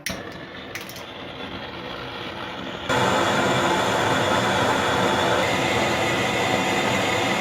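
Brazing gas torch: a few clicks, a hiss that slowly grows, then about three seconds in the flame comes on full with a sudden jump to a loud, steady rushing noise.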